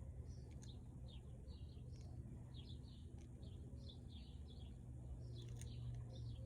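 Small songbirds chirping over and over in short, quick, falling notes, over a steady low background hum, with a few faint clicks.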